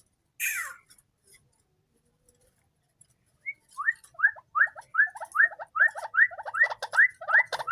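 White-breasted waterhen calling: one harsh call falling in pitch, then after a pause of about three seconds a fast run of short rising notes, about three a second.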